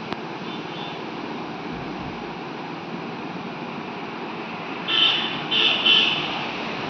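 Dense-forest ambience: a steady rushing background noise, with two loud, high-pitched calls about five and six seconds in, and a faint one near the start.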